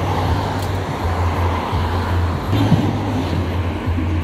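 Road traffic: cars driving past on a paved road over a steady low hum, with one vehicle passing louder about two and a half seconds in.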